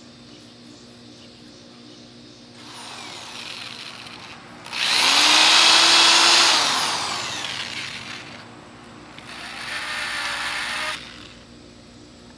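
Corded electric drill boring pilot holes for hinge screws into a painted dog walk board. It runs in two spells: a longer one that starts lightly, then runs loud at full speed before winding down, and a shorter one near the end.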